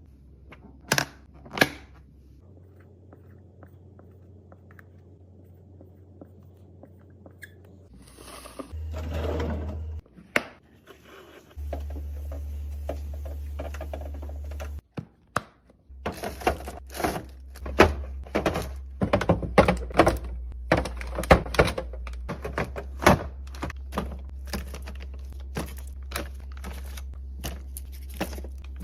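Containers and items being set down and handled in a fridge, with many sharp knocks, clicks and thunks, sparse at first and coming thick and fast in the second half.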